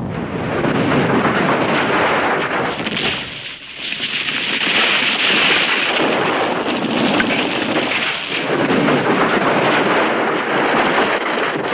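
Volcanic eruption noise, a loud rushing roar without any clear pitch that rises and falls in long swells and dips briefly about three and a half seconds in.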